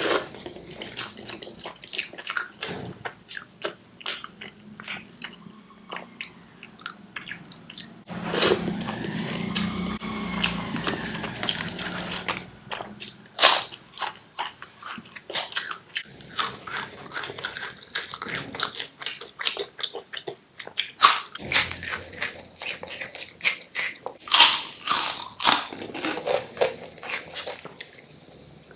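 Close-up eating sounds: chewing mouthfuls of chana-chole curry and rice, with repeated sharp crunches from bites of crisp moong papad, most in the second half.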